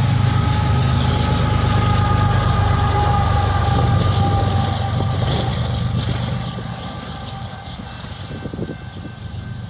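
Diesel-electric locomotive at the tail end of a loaded coal train running past close by: a steady low engine drone with a thin whine above it. The sound drops off clearly about two-thirds of the way through as the locomotive moves away.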